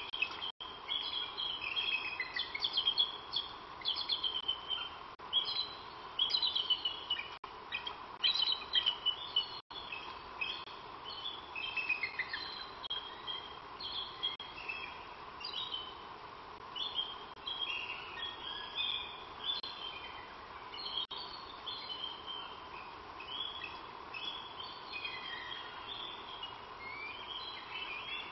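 Birds chirping and singing in many short, quick phrases, with a steady faint hum underneath.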